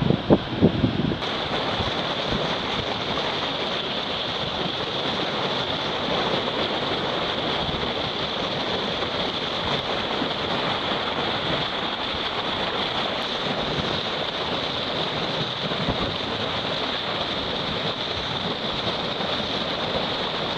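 Steady rush of wind buffeting the microphone mixed with the wash of sea water from a trawler under way, with a few loud bumps in the first second.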